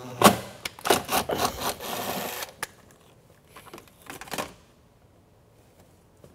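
Cordless drill driving a 7mm bolt into the firewall for about two and a half seconds, then a few lighter clicks as the wiring is handled.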